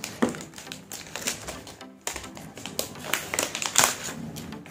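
Thin clear plastic wrap being peeled and pulled off a smartphone box, crinkling with quick, irregular crackles.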